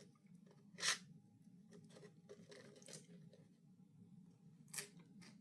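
Faint clicks and small scrapes with two short rustles, one about a second in and one near the end: food being handled and dished out.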